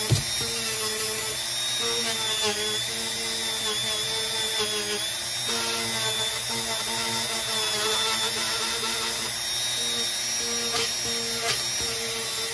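Dremel rotary tool running at high speed with a steady whine, its bit grinding against the metal rail of O gauge track to scuff off the outer coat so that wires can be soldered on. A sharp click right at the start.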